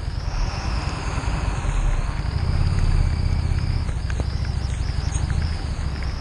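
Harley-Davidson Street 750's V-twin engine running at low speed, its low throb swelling for about a second halfway through, under a steady hiss of wind and rain on the microphone.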